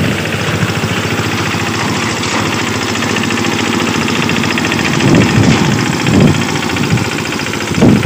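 Diesel engine of a small self-propelled wheat reaper-binder running steadily with a fast, even beat as the machine cuts wheat at ground level and ties it into sheaves. There are a few louder surges in the second half.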